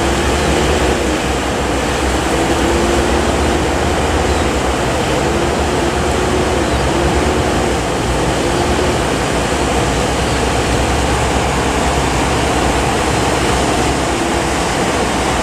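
Boat at sea in rough water: a loud, steady rush of wind and water over a low engine drone.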